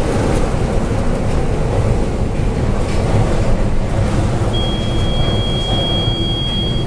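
Steady, heavy low rumble of a ship labouring in a storm, with wind and sea noise. About two-thirds of the way in, a steady high-pitched tone starts and holds.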